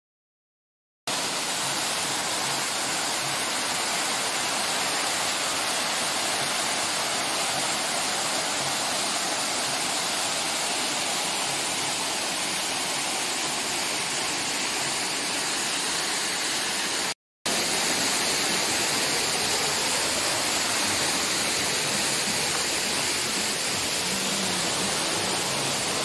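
Uduwaka (Dunumala) waterfall, about 45 metres high: a steady rush of water falling onto rock. It starts about a second in and cuts out for a moment about two-thirds of the way through.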